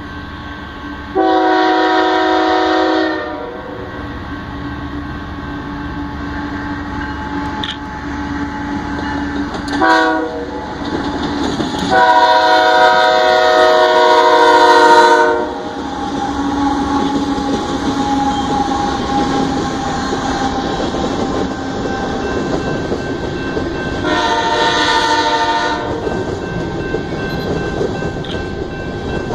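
BNSF freight diesel locomotives sounding their air horn for a grade crossing: a long blast about a second in, a short one near ten seconds, the loudest and longest from about twelve to fifteen seconds, and another long one near the end. Between the blasts, the locomotives' engines rumble and the wheels of the covered hopper cars clatter as the grain train passes.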